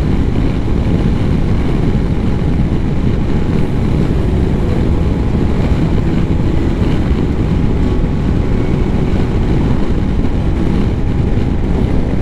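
Steady wind buffeting on the camera microphone over the drone of a BMW R 1250 GS boxer-twin motorcycle cruising at road speed.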